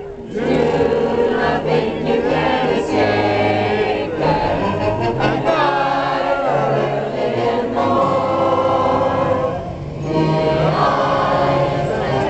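Choral music: a choir singing long held chords, with a brief lull about ten seconds in.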